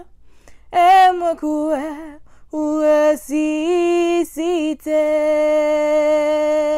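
A woman singing a slow Haitian Creole worship song unaccompanied: a few short phrases, then a long held note from about five seconds in.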